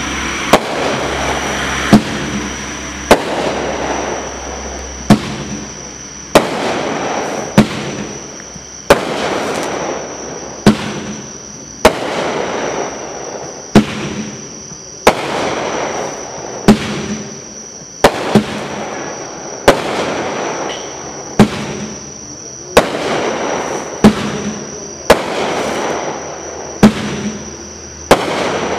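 Dominator Samurai Warrior 500-gram, 15-shot firework cake firing: a steady run of sharp bangs one to two seconds apart, with a noisy fizzing haze between them.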